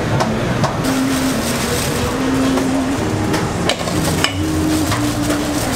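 Busy street-food stall ambience: a steady din of background noise with scattered short clinks and taps, and a low held tone that steps up and down between a few pitches every half second or so.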